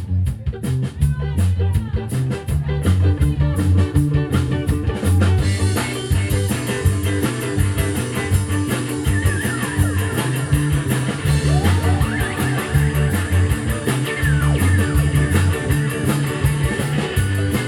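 Live space-rock band playing an instrumental intro: a repeating bass line and drums with electric guitar, cymbals coming in about five seconds in, and sliding high notes from about nine seconds on.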